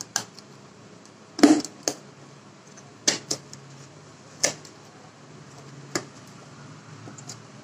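Plastic food container's snap-on lid being pried open by hand: a series of short, sharp plastic clicks and snaps about a second apart, the loudest about a second and a half in.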